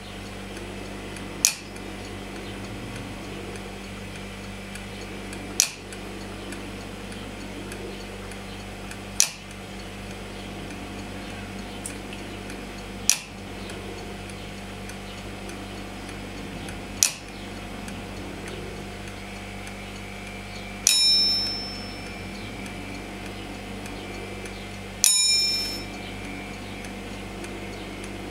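Junghans Trivox Silentic mechanical alarm clock's staged alarm going off: a sharp tap about every four seconds, five times, then from about two-thirds of the way through the taps turn into bell strikes that ring on for about a second each, three times.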